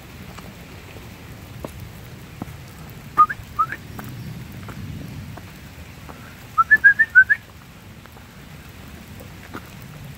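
Short, loud, rising whistled chirps: two about three seconds in, then a quick run of six about three seconds later, over low steady background noise.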